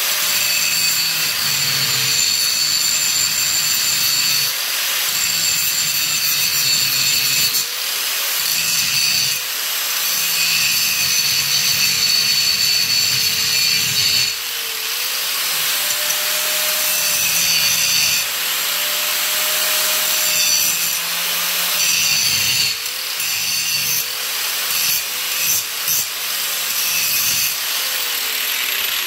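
Angle grinder grinding down the head of a steel seat-mounting bolt in a school bus floor. It runs continuously, the motor's whine sagging and recovering as the disc is pressed in and eased off, with a few brief let-ups.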